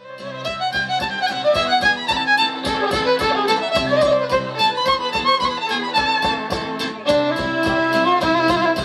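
Instrumental background music fading in: a quick, steady run of short notes under held melodic notes. About seven seconds in it swells, with a new, lower held note.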